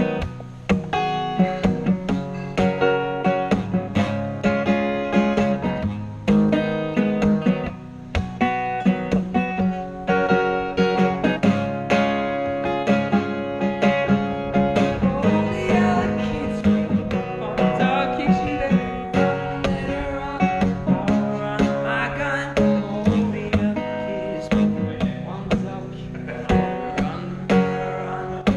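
Acoustic guitar strummed in a steady rhythm, chords ringing close to the microphone.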